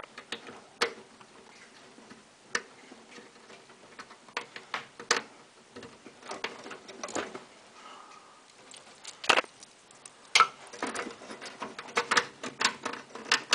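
Irregular plastic clicks and knocks as a stiff SATA power connector from a new power supply is worked onto a drive inside a PC tower case, with cables being handled; two sharper knocks stand out about nine and ten seconds in.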